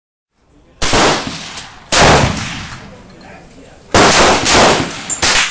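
AR-15 rifle firing about five shots at uneven intervals, each sharp crack trailing off in a long echo.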